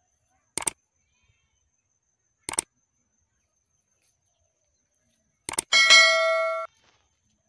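Short sharp clicks at about a second, two and a half seconds and five and a half seconds in, then a bright metallic bell-like ding that rings for about a second and stops abruptly, over otherwise dead silence: an added sound effect.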